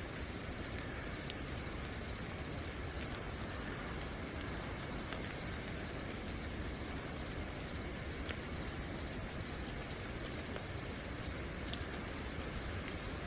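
Steady night rain with crickets chirping continuously in a high, even tone, and scattered drops ticking now and then.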